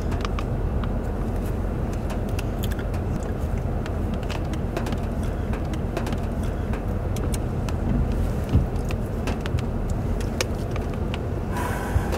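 Steady low rumble of storm wind close to a wedge tornado, with many scattered sharp ticks throughout and a louder knock past the middle and another near the end.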